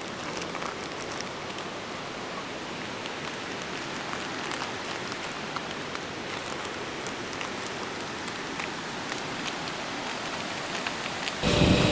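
Steady patter and trickle of small water flows, with scattered tiny splashes and drips. About half a second before the end a louder sound with a steady hum cuts in abruptly.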